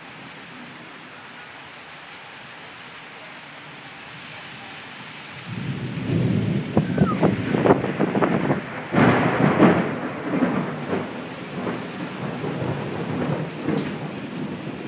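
Steady rain, then about five and a half seconds in a loud peal of thunder breaks in with sharp crackles, loudest a few seconds later, and rolls on as rumbling.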